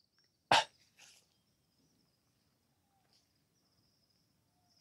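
A single short knock about half a second in as a firecracker box is set down on the ground, with a fainter knock just after. Under it, a faint steady high-pitched insect drone.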